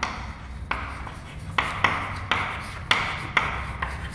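Chalk writing on a chalkboard: a run of sharp taps and short scratches as letters are formed, about two strokes a second.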